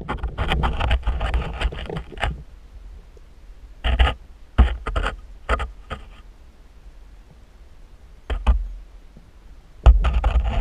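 Bursts of scraping and clicking with dull low knocks, heard underwater through a GoPro's waterproof housing, in irregular clusters with quieter gaps between them: the camera housing rubbing and bumping as it is moved along the sandy bottom.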